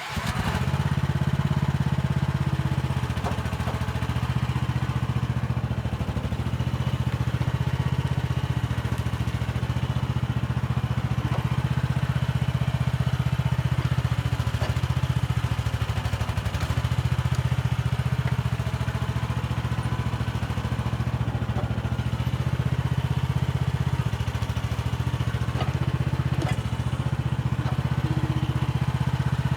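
Mini excavator's petrol (non-diesel) engine running steadily while the machine digs, its note shifting slightly now and then, with a few faint knocks and clatter from the work.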